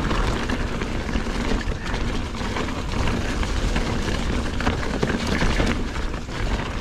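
Mountain bike rolling down a leaf-covered dirt trail on Maxxis Recon tyres, crunching through fallen leaves with a steady stream of small knocks and rattles over the bumps. The leaves are slick, and the tyres keep losing traction on them.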